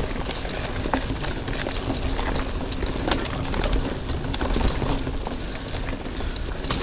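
Cube Stereo 150 full-suspension mountain bike rolling along a dirt forest trail: steady tyre noise, with scattered clicks and knocks from the bike over bumps and wind rumble on the handlebar-mounted microphone.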